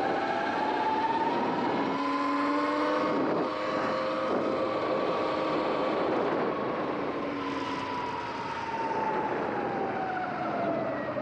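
Sur-Ron X electric dirt bike's motor and drivetrain whining as it accelerates, the pitch rising over the first few seconds, holding, then falling as it slows near the end. Steady tyre and wind noise runs underneath.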